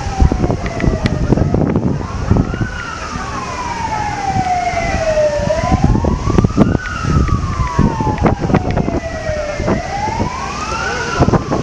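Fire engine siren wailing, its pitch rising quickly and falling slowly about every four seconds. Underneath it is a loud low rumble with occasional knocks.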